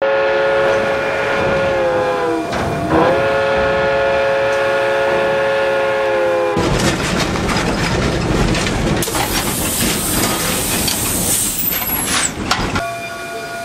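A steam locomotive's chime whistle blowing a chord of several tones in two long blasts, the pitch sagging as the first blast ends. The whistle is most likely that of Canadian Pacific 2317, a 1923 Montreal Locomotive Works engine. It is followed by a loud, noisy rush of steam lasting several seconds, with a high hiss near the end.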